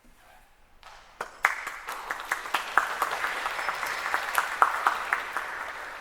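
Audience applauding: about a second of quiet, then clapping begins, swells and tails off near the end.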